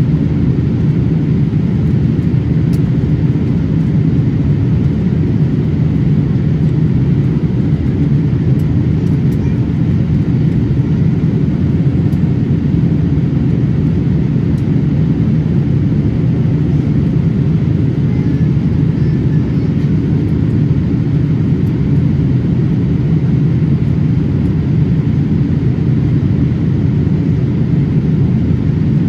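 Steady in-flight cabin noise inside a Boeing 787-8 airliner: the constant low rumble of airflow and engines, unchanging throughout.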